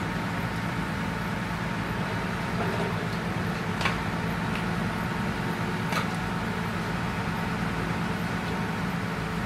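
Steady drone of a fire truck's engine running at the scene, with two short sharp cracks about four and six seconds in.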